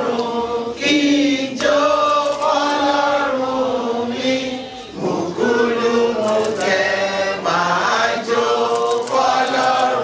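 People singing a song together, in long held notes with short breaks between phrases.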